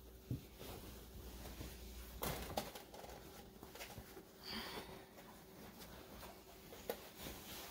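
Cloth rustling as a green gabardine jacket is pulled on over raised arms, in a few short rustles with a brief click or bump, over a steady low room hum.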